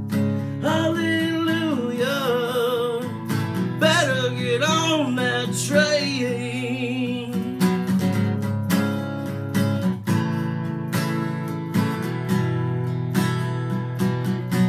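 Acoustic guitar strummed steadily, with a singing voice holding long wavering notes through the first half, then the guitar strumming on alone.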